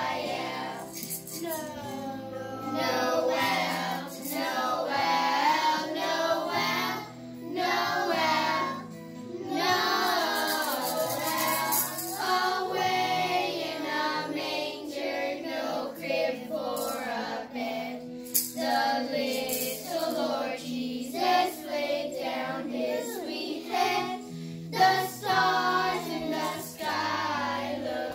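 A group of children singing a Christmas carol together, over steady instrumental accompaniment.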